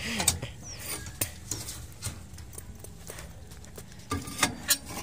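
Metal clanks and clicks from a hand-levered steel plate-rolling machine, its chain and sprocket turning the rolls as a steel plate is bent into a curve. The knocks come irregularly, with a louder run of them near the end.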